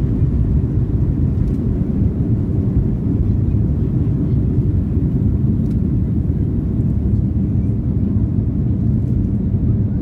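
Airliner on its takeoff roll, heard from inside the cabin: a loud, steady low rumble of the engines at takeoff power and the wheels on the runway.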